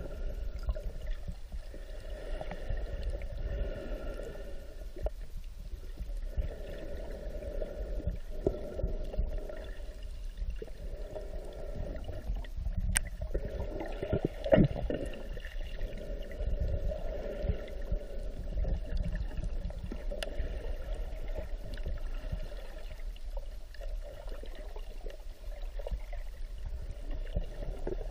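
Muffled underwater water noise heard through the submerged camera: a low, steady rumble and wash, with one sharp knock about halfway through.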